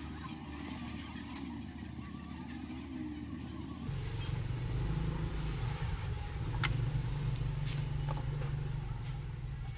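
Steady low rumble like a machine or distant traffic, which changes abruptly about four seconds in to a stronger, deeper rumble. A few faint light clicks follow near the end.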